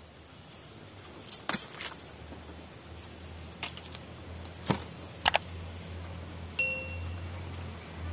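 Bonsai wire and pliers clicking and snapping as branches are wired, a few sharp metallic clicks, then a short metallic ding about six and a half seconds in. A low steady hum runs underneath.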